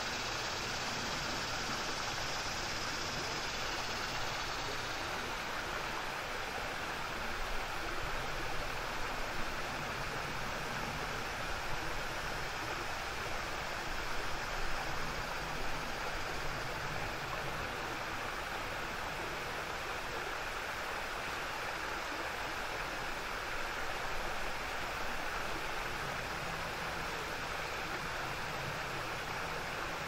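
Small waterfall on a river offshoot stream: water rushing and splashing over a low rocky ledge in a steady wash of noise, with a few slightly louder surges around the middle.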